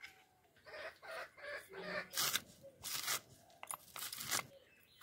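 Crisp crunching slices as a raw banana flower is chopped against an upright cutting blade, several strokes in a row. Chickens cluck in the background.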